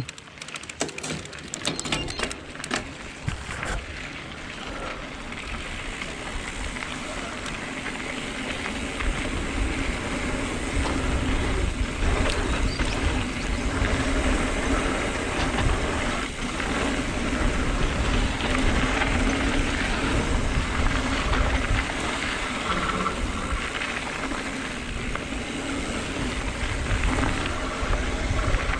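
Mountain bike riding down a dirt trail: a run of clicks and knocks as it sets off, then tyres rolling and the bike rattling over the ground, with wind rumbling on the microphone and growing louder as speed builds.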